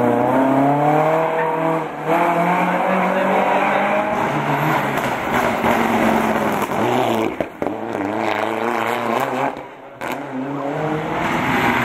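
Rally car engines revving hard through tight tarmac corners across a few edited shots, the pitch climbing and dropping with each gear change; one car is a Mitsubishi Lancer Evolution with a turbocharged four-cylinder.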